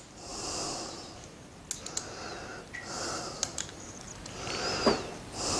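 A man breathing audibly through his nose, a slow breath every two to three seconds, with a few small clicks from handling a plastic pole-rig winder as fishing line is wound onto it.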